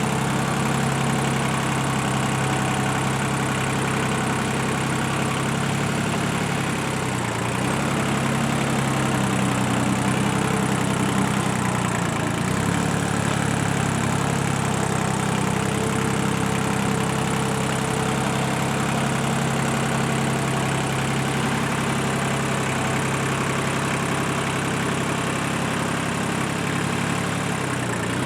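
Tractor engine running steadily, its note dipping briefly a few times.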